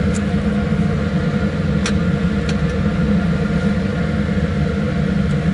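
Laminar flow hood's fan running with a steady hum, with a few light clicks from handling the containers and tools.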